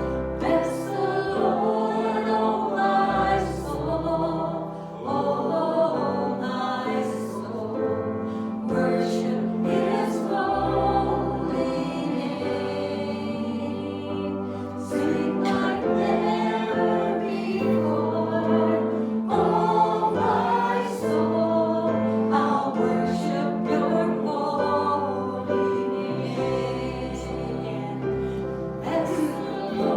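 A choir or group of voices singing a worship song with instrumental accompaniment and a bass line of held low notes.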